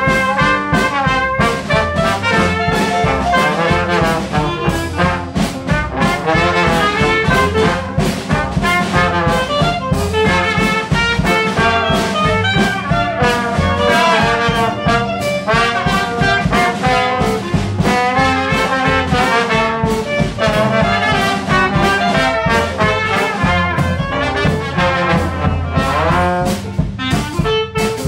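Live jazz band playing: trumpet, clarinet and trombone front line over piano, string bass and drums.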